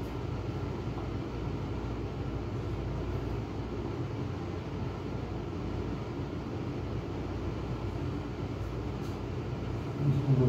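Steady low machine hum and rumble of room equipment, with a short, louder low-pitched sound just before the end.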